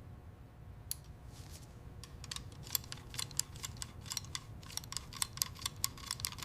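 A quick, irregular run of light clicks and ticks that thickens after about two seconds, over a low steady hum.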